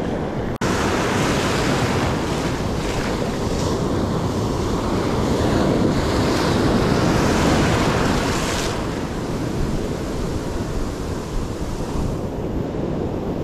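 Surf breaking and washing up the beach, with wind buffeting the microphone. The wash builds and hisses loudest over the first eight or nine seconds, then eases to a lower rumble.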